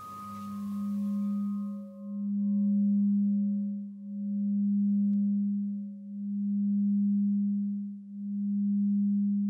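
A low, steady tone that swells and fades about every two seconds, with a fainter higher tone pulsing along with it. At the start, the higher ringing of the rock-crystal rods dies away.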